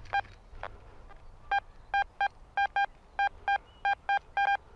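Garrett Ace Apex metal detector giving short, same-pitched target beeps, about eleven of them, often in quick pairs, as the search coil is swept back and forth over a buried target that reads in the mid 80s.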